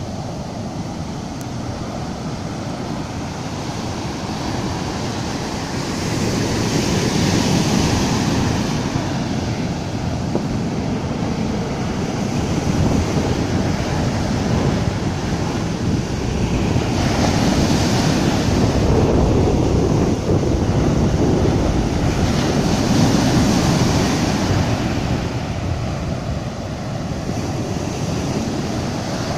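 Sea surf breaking on a sandy beach, the swash running up the sand and draining back. It makes a continuous rushing noise that swells louder several times as waves break, about a quarter, two thirds and four fifths of the way through.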